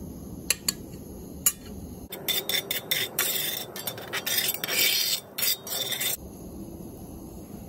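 Butter sizzling in a hot Lodge cast iron skillet while a metal spatula scrapes and taps against the pan, spreading the melting butter. A few sharp taps come first, then the sizzling and scraping turn loud for about four seconds before easing off.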